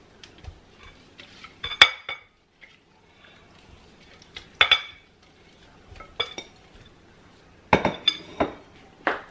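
Sharp clinks of a serving bowl and metal whisk knocking against a glass mixing bowl as chicken wings are tipped into batter. About seven irregular clinks with a short ring, several close together near the end.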